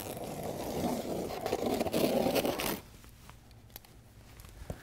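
A scissor blade drawn along the packing tape on top of a large cardboard box, slicing it open with a scraping rasp that grows louder and stops abruptly about three seconds in. A few faint clicks follow.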